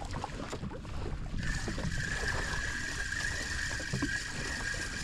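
Fishing reel being cranked at a steady pace on a lure retrieve: a steady high whine that starts about a second and a half in, over wind and water noise. It is on the spare rod that needs work, whose reel doesn't sound very healthy.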